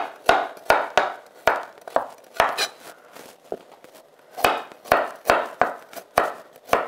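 Chef's knife slicing a carrot into rounds on a wooden cutting board: even knocks of the blade on the board, about two and a half a second, stopping for about a second and a half midway and then resuming.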